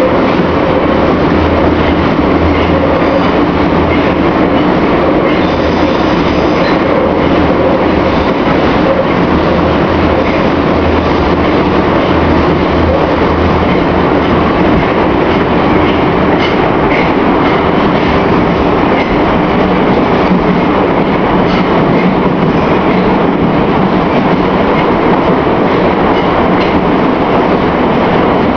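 Old metro car running between stations, heard from inside the car: a steady, loud running noise of wheels on the rails with a low hum beneath.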